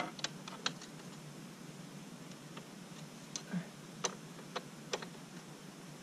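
Sparse, light metallic clicks, about ten spread irregularly, of a hand wrench working on an ATV swingarm's chain adjuster bolt and lock nut.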